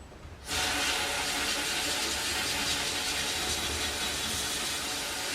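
Shot blast cabinet's air-fed blasting gun starting about half a second in and hissing steadily as abrasive is blasted onto a rusty part.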